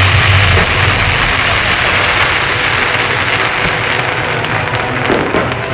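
Fireworks display: a dense crackling hiss, with scattered sharp pops toward the end.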